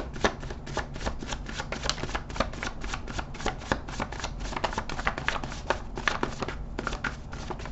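A deck of tarot cards shuffled by hand: a quick, even run of card clicks, about five or six a second, with a brief pause near the end.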